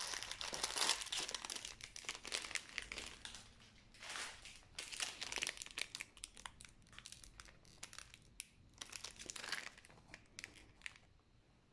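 Clear plastic bags of piston rings crinkling as they are handled and taken out of their cardboard box, in irregular bouts that grow quieter near the end.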